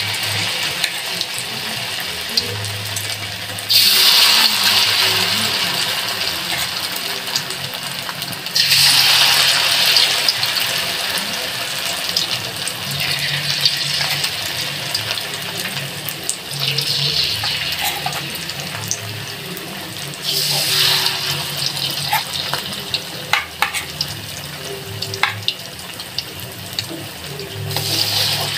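Floured mackerel tuna pieces frying in hot oil in a wok, a steady sizzle that flares up loudly about five times as fresh pieces go into the oil, each flare dying down over a few seconds. A few light clicks of a metal spoon against the wok come in the second half.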